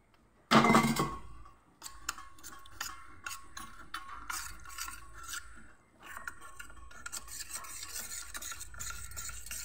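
Metal spoon stirring cornflour and water into a slurry in a stainless steel bowl, scraping and clinking against the bowl in quick repeated strokes, with a short pause about halfway. A brief louder sound comes just before the stirring starts.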